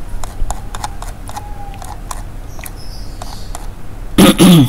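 Scattered soft clicks of a computer mouse and its scroll wheel while a web page is scrolled, then a brief loud vocal noise with a falling pitch near the end.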